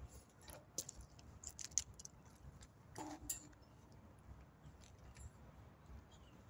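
Faint scattered clicks and rustles as a leg is lifted and a foot set onto metal wall bars, with a short squeak about three seconds in.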